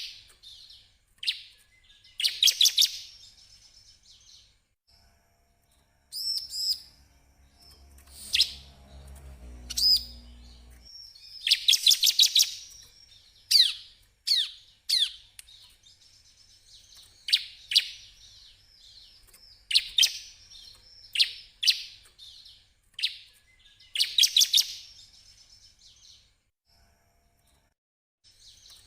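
Bar-winged prinia (ciblek) singing: a series of sharp, high chirps and short rapid trills, phrase after phrase with brief pauses between. A faint low hum sits underneath for a few seconds partway through.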